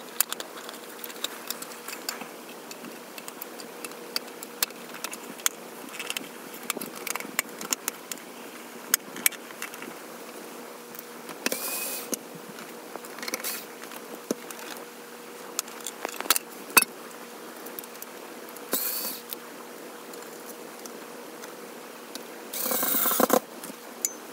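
Plastic cordless phone parts being handled: scattered clicks and taps, with a few short scraping or rubbing sounds, the longest lasting about a second near the end, over a faint steady hum.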